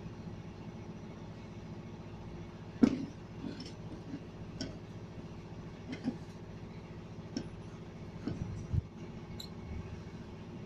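Scattered clicks and knocks of metal on metal as a scooter's centrifugal clutch assembly is handled and turned in a homemade clutch-holder tool, with one louder knock about three seconds in. A steady low hum runs underneath.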